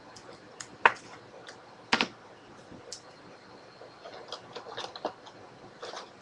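Scattered light clicks and taps of small hard objects being handled on a desk, with two sharper knocks about one and two seconds in and a quick run of small clicks around four to five seconds in.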